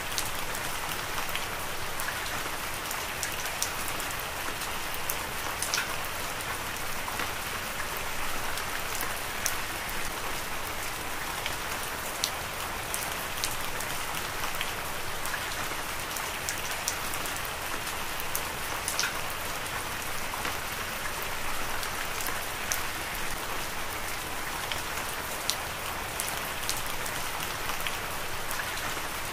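Heavy rain pouring steadily: a dense, even hiss with many scattered sharp taps of single drops striking close by.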